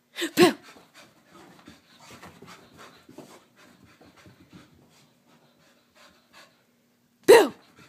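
A Soft-coated Wheaten Terrier panting quickly as she runs about. Just after the start and again near the end there are two short, loud vocal sounds that drop in pitch.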